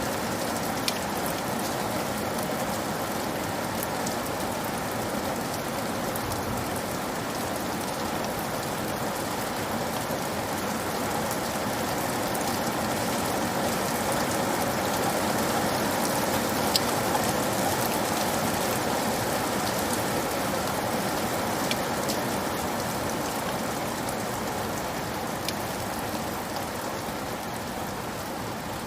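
Steady rain pattering on a roof, with a few sharper single drops ticking now and then. It swells slightly about halfway through.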